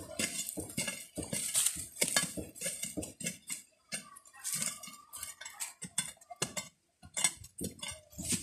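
Hand-held digging bar jabbing and scraping into dry, stony soil in quick, irregular strikes, with loose earth and grit rattling: digging out a wild kapari tuber.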